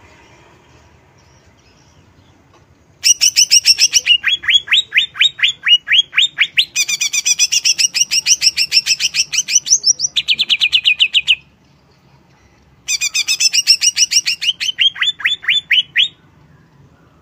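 Greater green leafbird (cucak ijo) singing two loud bursts of fast, rapidly repeated high notes, many of them rising sweeps. The first burst starts about three seconds in and runs about eight seconds; the second, about three seconds long, follows a short pause.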